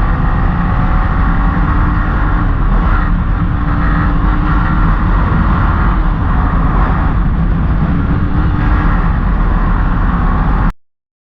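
Motorcycle engine running steadily while riding, with a dense low rumble of road and wind noise. The sound drops out abruptly for about half a second near the end.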